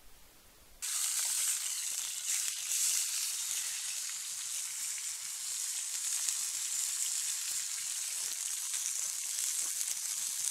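Meat sizzling in a frying pan over a wood fire: a steady hiss with fine crackle that starts suddenly about a second in.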